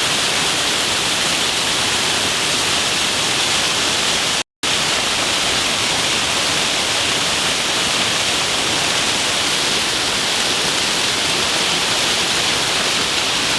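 Waterfall rushing: a steady, loud, hissing roar of falling water. It drops out completely for a split second about four and a half seconds in.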